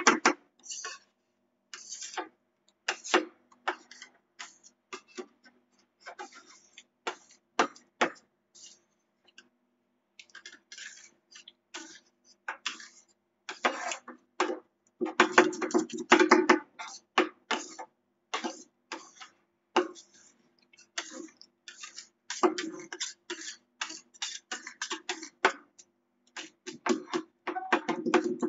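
Metal spatulas chopping and tapping on the frozen steel plate of a rolled-ice-cream pan: sharp metallic clacks, sometimes single and sometimes in fast runs of chopping.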